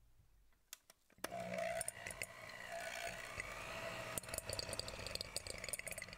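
Electric hand mixer switching on a little over a second in and running steadily, its wire beaters clicking against a glass bowl as they beat cubes of cream cheese soft.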